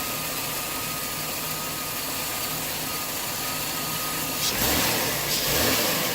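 Ford Taurus engine idling steadily on its newly replaced alternator, with a thin steady whine over the hum. About four and a half seconds in, a louder stretch of noise rises over the idle for a second or so, then fades.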